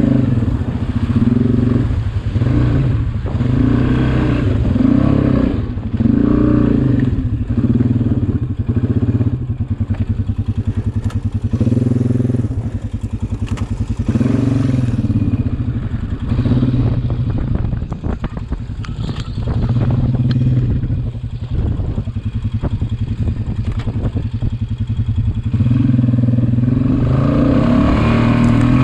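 2011 Honda Rincon 680's single-cylinder engine running through an HMF aftermarket exhaust, the throttle blipped again and again so the revs rise and fall every second or two. Near the end it holds steadier at higher revs.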